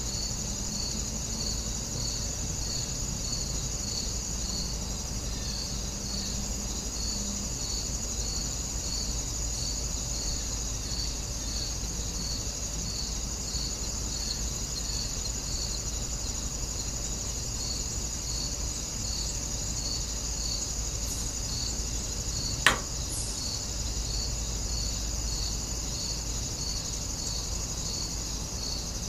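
Steady chorus of insects, with a high chirp pulsing about twice a second over a low rumble; a single sharp click stands out about two thirds of the way in.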